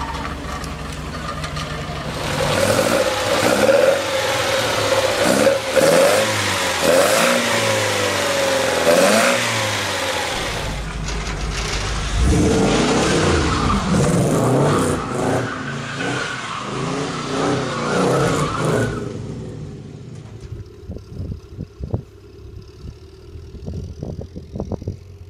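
A Lotus Elite Type 75's four-cylinder engine idling, then revved again and again, its pitch rising and falling. After a cut, a second car's engine is revved hard for several seconds. Near the end it turns much quieter, with wind buffeting the microphone.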